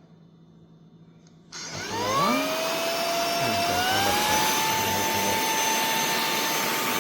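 Cordless handheld vacuum cleaner switched on about a second and a half in, its motor whine rising as it spins up. A couple of seconds later it steps up to a higher, steady pitch as it changes to its second, stronger speed.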